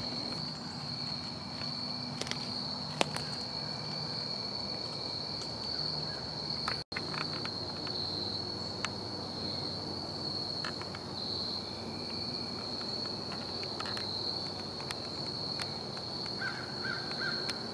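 Footsteps crunching and rustling through dry fallen leaves on a woodland floor, under a steady high-pitched drone of crickets or other insects.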